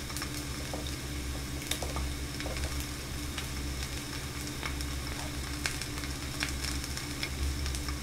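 Steady frying sizzle, with light scrapes and taps of a wooden spatula as kimchi fried rice is scooped out of a hot frying pan.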